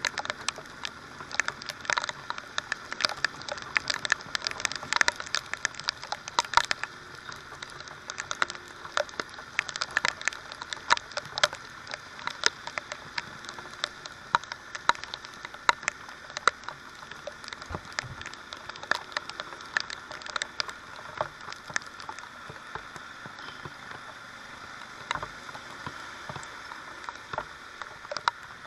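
Heavy rain: drops striking the motorcycle-mounted camera in irregular sharp taps, several a second, over a steady hiss of rain and wet road.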